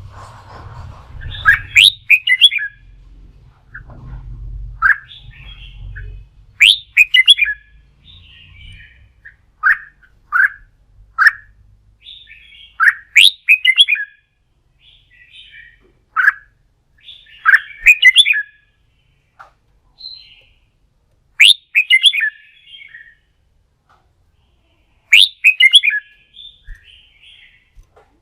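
Red-whiskered bulbul singing: short, loud, quick whistled phrases every four to five seconds, with single short notes between them.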